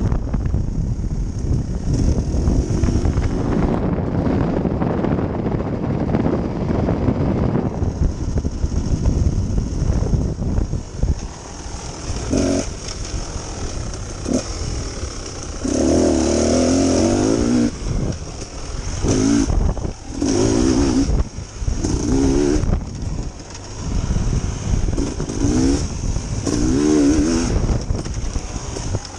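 Dirt bike engine ridden on a trail: rumbling ride noise at first, then from about halfway through repeated short throttle bursts, the engine pitch rising and falling every second or two.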